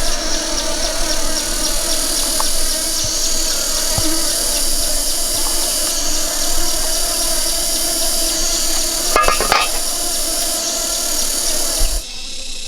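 Steady buzzing drone of many honeybees, with a high insect drone above it. There is a short rattle of clicks about nine seconds in, and the sound drops off abruptly near the end.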